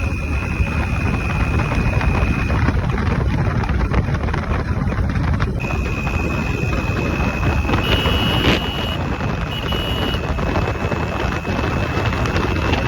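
Suzuki Max100's single-cylinder two-stroke engine running, its stock exhaust note buried in steady rushing noise. There is a single sharp knock about eight and a half seconds in.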